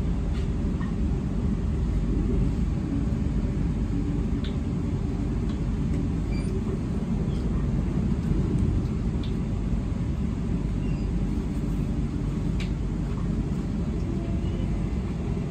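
Interior running noise of a Queensland Rail IMU 160 series electric multiple unit under way: a steady low rumble, with a few faint short clicks.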